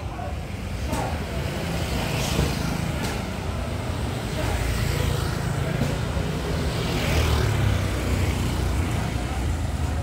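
Road traffic going by: a steady low engine rumble, with several motor vehicles passing in turn.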